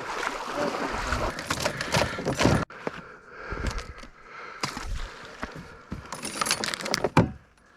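Clinking and rattling of gear being handled, many short clatters and scrapes, cutting off suddenly about two and a half seconds in and going on more quietly after.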